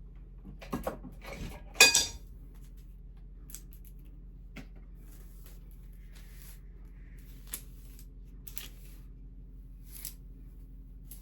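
Clinks and knocks of small hard objects being handled and set down, a cluster of them in the first two seconds with the loudest about two seconds in, then a few scattered light taps.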